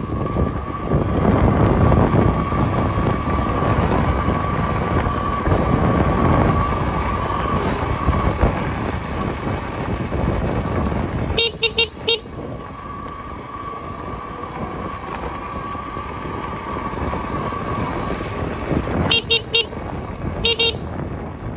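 Talaria electric dirt bike riding along a gravel path: a steady electric motor whine over wind and tyre rumble, loudest in the first few seconds. About halfway through and again near the end, the whine drops away and short beeps sound in quick groups of two to four.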